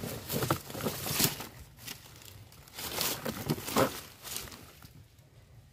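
Dry bamboo leaves and twigs crackling and rustling as a small wire-mesh cage trap is handled in the leaf litter, a run of irregular crunches that dies down near the end.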